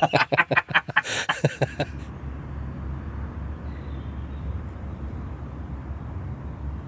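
A few seconds of talk, then a diesel engine running with a steady low hum.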